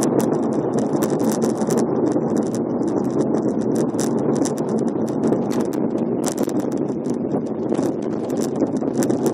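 A car driving through a road tunnel: steady tyre and engine noise, with frequent irregular clicks and rattles over it.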